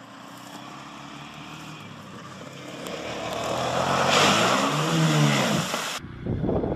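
ATV engine growing louder as the quad drives through a shallow creek, its pitch rising then falling about four to five seconds in, over the hiss of spraying water. Near the end the sound cuts abruptly to a different, choppier engine and wind noise.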